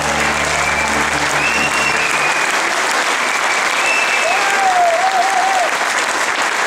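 Audience and band members applauding after a fanfare band's performance, with a few rising-and-falling cheering calls over the clapping. A low held chord from the band dies away about two seconds in.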